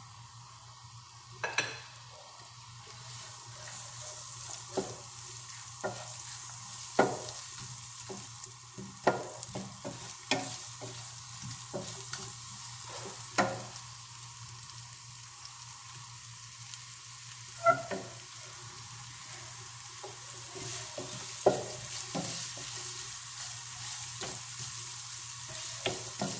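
Sliced onion, red pepper and garlic sizzling in olive oil in a nonstick frying pan, being sautéed; the sizzle grows louder a few seconds in. A wooden spoon stirring the vegetables gives scattered sharp knocks and scrapes against the pan.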